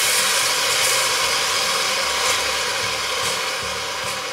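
Hot vegetable broth ladled onto toasted rice in a hot pot, sizzling and hissing loudly as it boils off in steam, easing off a little toward the end as it is stirred in.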